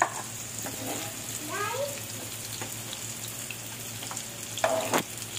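Tofu cubes frying in hot oil in a nonstick pan, a steady sizzle, as they are lifted out with a metal slotted spoon. A short rising squeak comes about a second and a half in, and a knock of the spoon against the pan near the end is the loudest sound.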